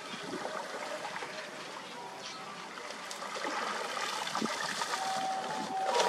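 Shallow canal water splashing and dripping as a stick levers a clump of wet debris up out of it, with a louder splash near the end.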